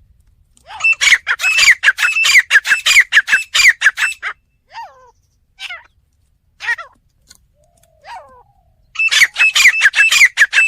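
Teetar (francolin) calling: a fast run of harsh, repeated notes, about five a second, lasting some three and a half seconds, then a few single call notes, and another fast run starting near the end.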